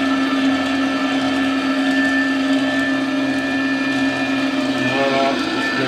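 Vertical slow juicer running as it presses fruit, its electric motor and auger giving a steady hum.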